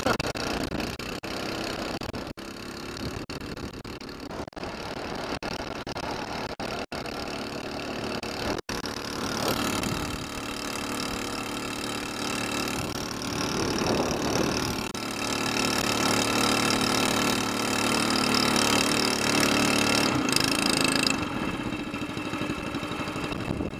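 SPS longtail mud motor's small single-cylinder Honda-clone engine, fitted with an aftermarket exhaust header, running steadily as it pushes the boat along. It grows louder about ten seconds in and holds there, with a few brief dropouts in the sound before that.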